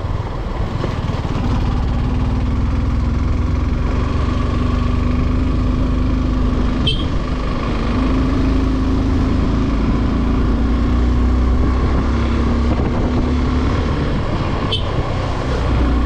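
Motorcycle engine running steadily under load while riding up a steep mountain road, its pitch shifting slightly a few times. Two brief sharp clicks, about halfway through and near the end.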